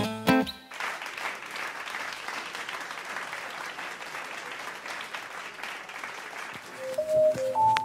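A band's last notes cut off, followed by several seconds of applause from a small audience. Near the end, a few sustained piano notes begin.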